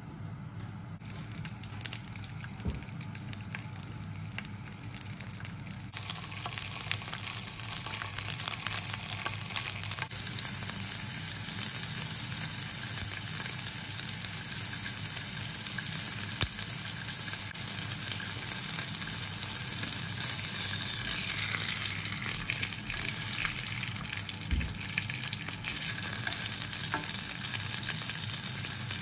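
Sesame-crusted fish steaks sizzling and crackling in a ridged grill pan. The sizzle grows louder about six seconds in and again at about ten seconds, then holds steady.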